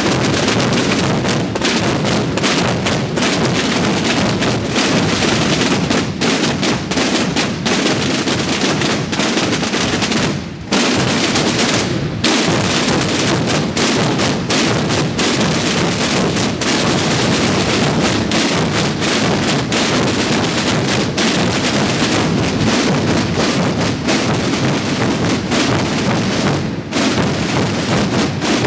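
Massed bombos (large bass drums) and tambores (side drums) of many Holy Week drum brotherhoods playing together in a dense, continuous din of strokes and rolls. It is a perkumascletà, drumming meant to mimic the firecracker barrage of a mascletà. The playing dips briefly about ten and a half seconds in.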